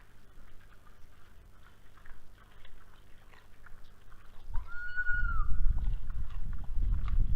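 A raccoon dog gives one short, high whine about five seconds in, rising, held and then falling, over faint scattered clicks. From about four and a half seconds a loud low rumbling noise comes in and continues.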